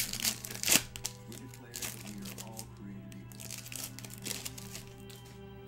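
Trading-card pack wrappers and cards crinkling and crackling as packs are opened, loudest in the first second, with a few more crackles later, over faint background music.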